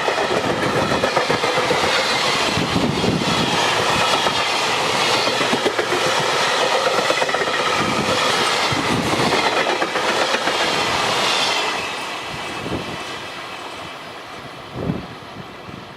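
Freight train wagons rolling past at speed, wheels clattering over the rail joints. The sound drops off about twelve seconds in as the train moves away, with one short knock near the end.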